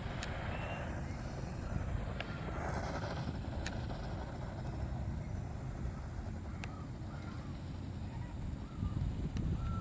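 A motor running steadily with a low rumble, with a few sharp clicks scattered through it.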